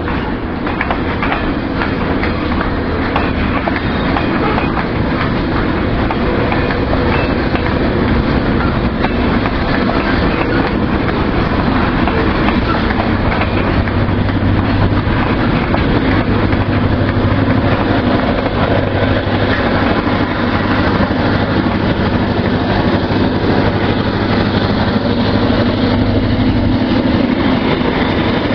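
Loaded covered hopper cars rolling slowly past on jointed track, a steady noise of wheels on rail. From about halfway a steady low engine drone joins it as the shoving Iowa Interstate EMD GP38-2 diesel locomotive draws near.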